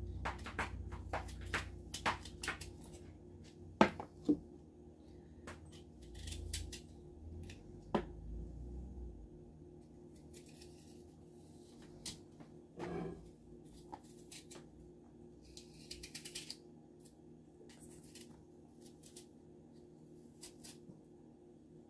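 Small kitchen knife peeling and cutting apple quarters by hand: quiet scraping and cutting clicks, with a couple of sharper clicks about four seconds in and a quick run of scratches later, over a faint steady hum.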